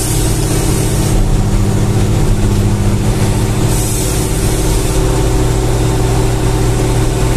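Loaded truck's diesel engine running steadily at an even pitch while under way, with brief spells of higher hiss.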